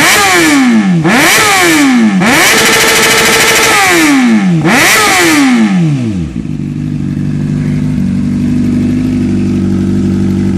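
Honda CBR600F inline-four revved loud through a Hurricane Evolution sport slip-on exhaust: four quick throttle blips, the third held high for about a second. About six seconds in it drops back to a steady idle.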